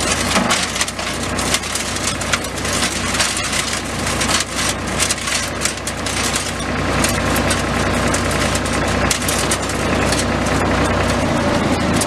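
Tractor-PTO-driven Goossen wood chipper running, with a dense, continuous crackle and clatter of wood being chewed up over the steady hum of the tractor engine. The low engine hum drops away near the end.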